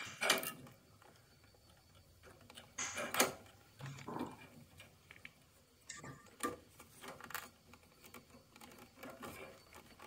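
Scattered light metallic clicks and knocks as a gas pipe and its nut are worked into place against a combi boiler's gas valve and metal mounting plate.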